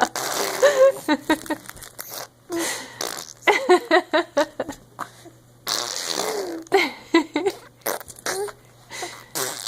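A baby blowing raspberries: fart sounds made by sputtering the lips, in repeated bursts mixed with short vocal squeals.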